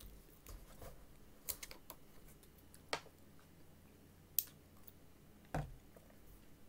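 Scattered light clicks and taps as a plastic water bottle is handled, with one louder dull thump near the end.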